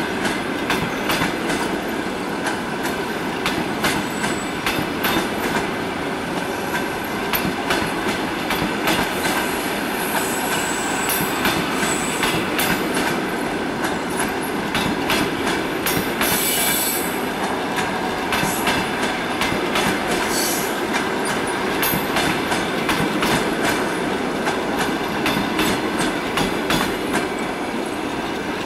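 Passenger coaches of a departing train rolling past close by, their wheels clicking rapidly and steadily over the rail joints, with a few brief high wheel squeals midway.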